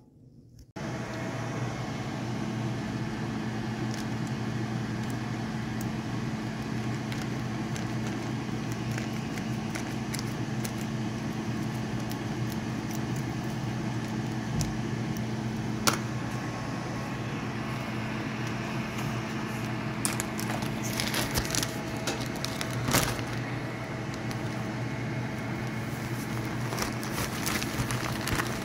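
Plastic bags being handled over a steady electric hum: crinkling and rustling, a snip of scissors opening a bag of fish-fry seasoning, and a few louder rustles and a sharp click past the middle as the seasoning is poured into a zip bag.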